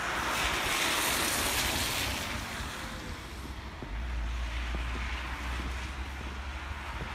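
A car's tyres hissing past on a wet, slushy road, swelling over the first two seconds and then fading away. After that a steady low rumble of wind on the phone's microphone.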